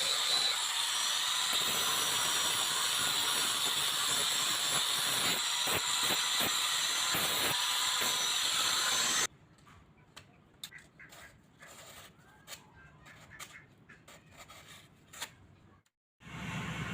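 A power tool running steadily with a hiss and a fixed whine, then cutting off abruptly about nine seconds in. Quiet scattered taps and clicks follow.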